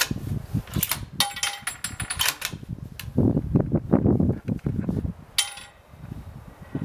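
Metallic clicks and clinks of a Ruger American .30-06 bolt-action rifle's bolt being worked between shots. Two of the clinks ring briefly, about a second in and again near five seconds, and there is low rumbling between them.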